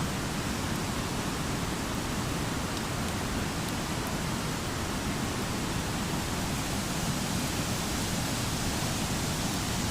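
Steady, unbroken rush of fast-flowing mountain water.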